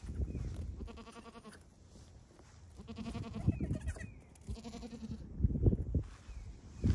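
Goats bleating: three wavering bleats about a second and a half apart, with low thumps and rumbles between them.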